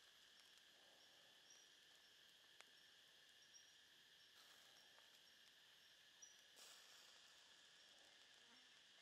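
Near silence: faint forest ambience with a steady, high insect drone, a few short high chirps and a few faint clicks.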